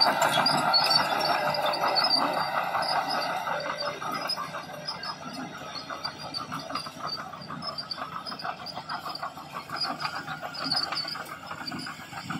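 Crawler dozer working: its engine runs under a fast, even clanking of steel tracks, louder for the first few seconds.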